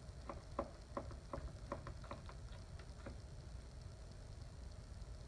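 DALSTRONG Shogun Series steak knife sawing back and forth through a cooked steak on a plastic cutting board, making a faint run of light clicks about three a second that stops about three seconds in.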